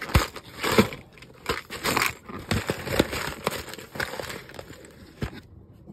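A paper envelope crinkling and rustling as it is handled, with the small plastic and metal roof-lining pins inside rattling. The run of quick clicks and rustles stops about five seconds in.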